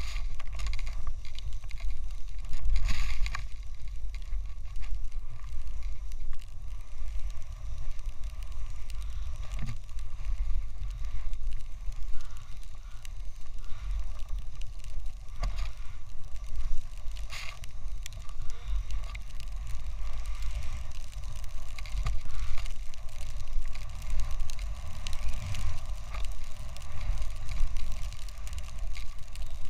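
Wind buffeting a pole-mounted action camera's microphone as a snowboard slides through fresh powder: a steady low rumble with the hiss of snow underneath and a few brief scrapes.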